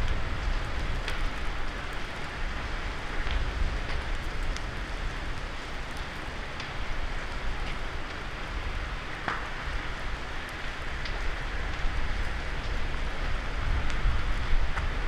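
Forest fire burning through undergrowth: a steady crackling hiss with scattered sharp pops, one louder about nine seconds in, over a low steady rumble.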